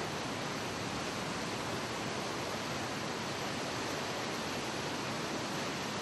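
Steady rush of white water tumbling over rocks in a mountain canyon stream, an even hiss with no breaks.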